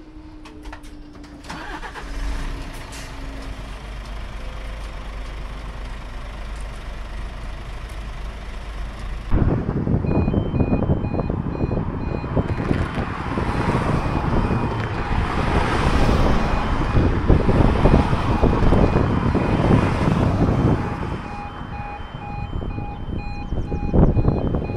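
Level-crossing warning alarm beeping in rapid repeating pulses as the crossing sequence starts, with a lower pulsed tone joining near the end, over loud road noise from passing cars. Before that, for the first nine seconds, a lorry's diesel engine idles with a low steady rumble.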